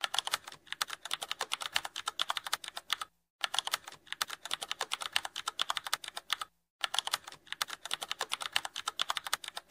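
Rapid keyboard typing clicks, a typing sound effect, in three runs broken by short pauses about three seconds and six and a half seconds in.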